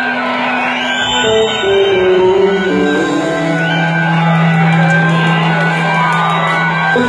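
Live rock band music amplified in an arena: long held chords whose bass note steps down and then sustains, with a few whistles and whoops from the crowd.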